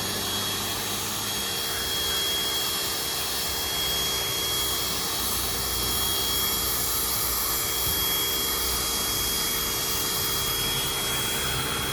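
Pressure washer running steadily as it sprays, a constant motor hum with a high whine over the hiss of the water jet.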